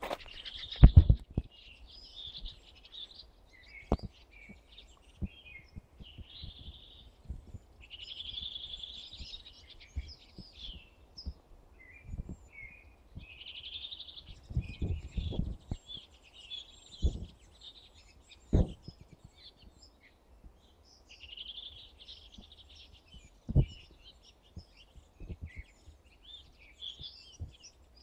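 Songbirds singing: short warbling and chirping phrases in repeated bouts, with pauses between them. Occasional low thumps, the loudest about one, fifteen and eighteen and a half seconds in.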